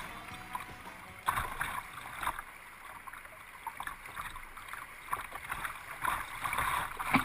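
River rapids rushing, with water slapping and splashing against the bow of a small paddle boat running through them; one sharper splash comes about a second in.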